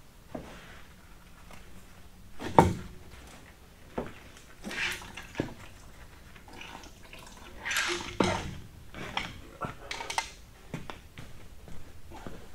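Scattered metal clanks, knocks and scrapes of hand tools and engine parts as a cylinder head is pulled off a 6.4 Powerstroke diesel engine.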